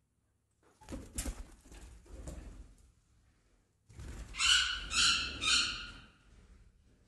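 Pet lovebirds: a brief flurry of wing flapping about a second in, then three loud, shrill calls in quick succession about four and a half seconds in.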